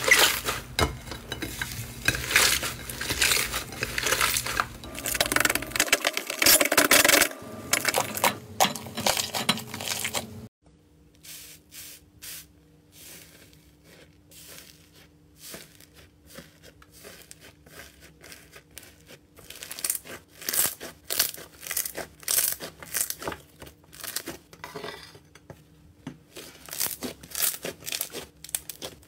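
Hands kneading and squeezing slime, with dense crackling and popping. About ten seconds in it drops suddenly to softer, sparser crackles as fingers press the crusted top of a grey iceberg slime. The crackles grow denser again near the end as the slime is kneaded.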